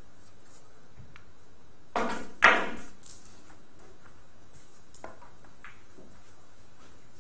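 Two sharp clacks of billiard balls about half a second apart, the second louder, each with a short ringing tail. A few faint knocks follow later.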